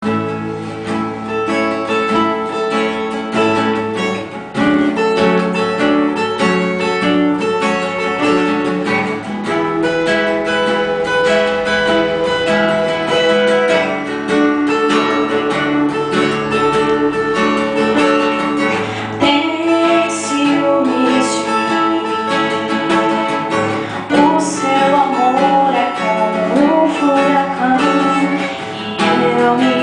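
Worship song with acoustic guitar playing steadily, with a woman's singing voice coming in near the end.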